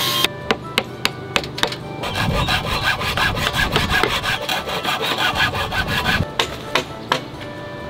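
Handsaw cutting across a wooden beam, a steady rasping run of quick strokes from about two seconds in until near the end. Short sharp knocks come before and after the sawing.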